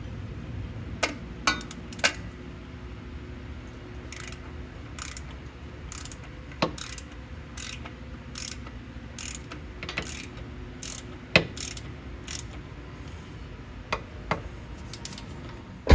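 A ratchet wrench clicks in short, irregular strokes, roughly one a second, as it turns the threaded shifter spring retainer into a manual transmission against the spring's tension. A low steady hum runs underneath.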